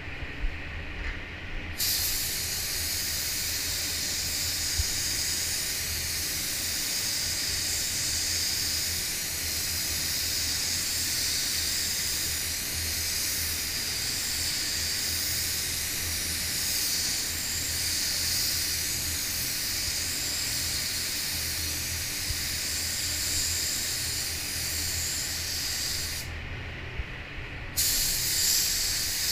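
Gravity-feed automotive paint spray gun hissing steadily with compressed air as it sprays paint onto a car panel. The trigger is held for over twenty seconds, released for a second or so near the end, then pulled again.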